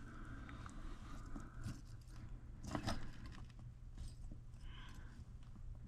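Faint clicks, taps and rattles of small parts being handled, over a steady low hum. The loudest cluster of clicks comes a little before the middle.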